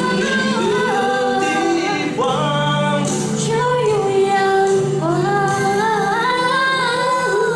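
Music: a female voice singing a slow melody with long held, gliding notes over steady chord accompaniment.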